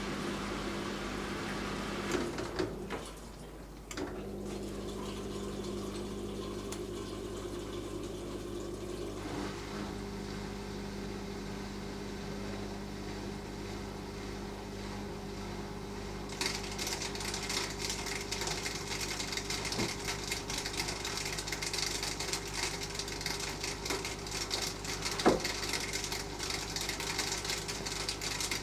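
Beko DWD5410W dishwasher running a wash cycle: a steady pump hum that stops briefly a few seconds in and then resumes, and from about halfway water spraying and splashing inside the tub. A single sharp knock sounds near the end.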